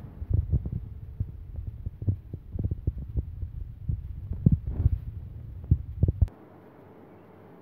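Irregular low thumps and rumble from a phone microphone being handled and moved. They stop abruptly about six seconds in, leaving a faint steady hiss.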